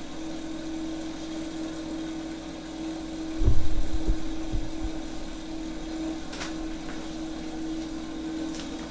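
A steady machine hum, with a few dull low thumps about three and a half seconds in and a couple of faint ticks near the end.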